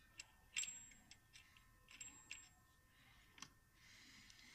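Near silence broken by a few faint, scattered metal clicks, about half a dozen, the loudest about half a second in: a washer being fitted onto the clutch shaft of a 200cc auto rickshaw engine.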